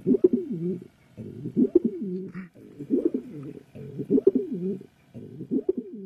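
Domestic pigeon cooing: a series of low coos, each about a second long and rising and falling in pitch, repeated about every second and a quarter.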